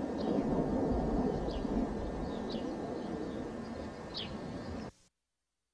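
Outdoor ambience: a steady low rumble with several short, falling bird chirps scattered through it. About five seconds in, the sound cuts off abruptly to dead silence.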